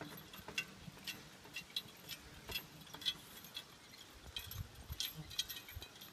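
Irregular metallic clinking and jingling, several sharp clinks a second, from the harness hardware of a walking team of draft horses and the steel log-loader trailer it pulls.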